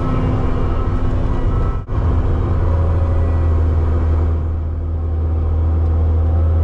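Vehicle engine running with a steady low drone, broken by a brief dip about two seconds in.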